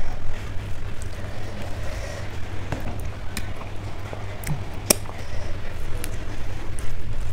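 Mukbang eating sounds close to the microphone: chewing and mouth noises, with a few sharp clicks a second or so apart, the loudest about halfway through. A steady low rumble runs under them.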